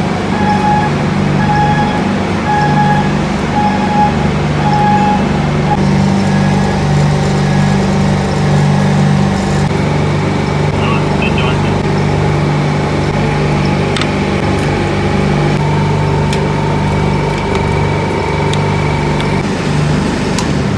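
Carrier reefer (refrigerated container) unit running with a steady low machine hum. A short beep repeats about once a second for the first six seconds.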